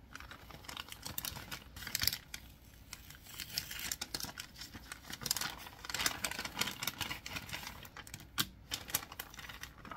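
Paper envelope rustling and crinkling as it is opened by hand, with a clear plastic sleeve crackling as it is pulled out and handled: irregular rustles and small clicks.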